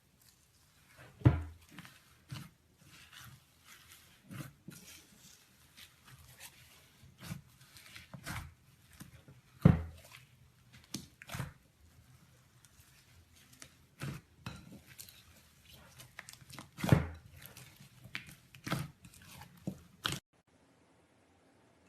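Slime being squeezed and worked by hand: irregular squishes and sharp pops, a few of them much louder, stopping abruptly near the end.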